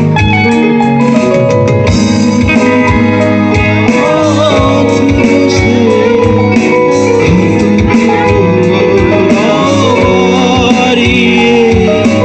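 Loud live rock band: electric guitar, bass guitar and keyboard over a steady beat, with a male singer coming in with a wavering, ornamented vocal line a few seconds in.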